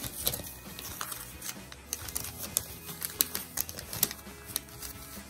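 Sheets of paper cut from book pages being handled and set in place, with a string of crisp rustles and light taps over quiet background music.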